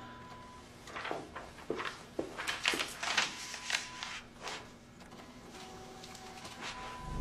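A run of irregular clicks and knocks, like something being handled, over a faint steady hum.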